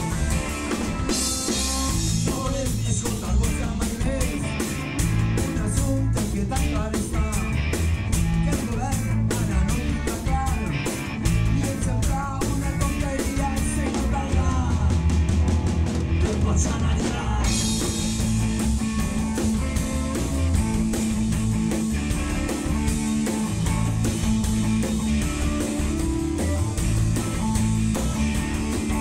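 Rock song with guitar and singing, with an acoustic drum kit with Paiste PST cymbals played along in a steady beat; cymbals open up and ring about a second in and again about midway.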